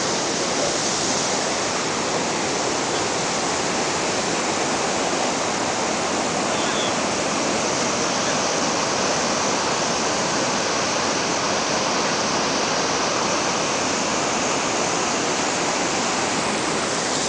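Floodwater rushing steadily over and through a collapsed road bridge: a constant, unbroken noise of churning white water.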